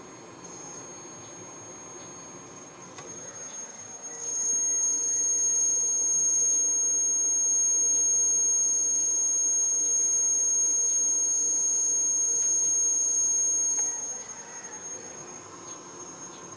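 A steady, shrill, high-pitched whine on one tone. It comes up loud about four seconds in, holds for about ten seconds, then drops back to a faint whine.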